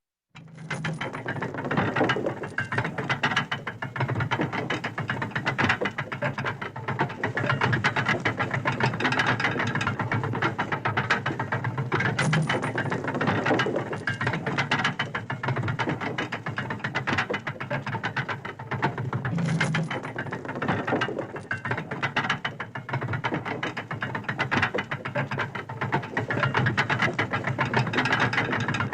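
A door mechanism clattering and clicking without a break, a dense, fast ratcheting rattle with a few louder swells.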